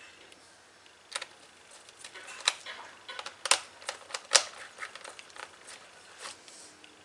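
Irregular sharp clicks and ticks of a small screwdriver working screws into a laptop's plastic bottom cover, loudest around the middle.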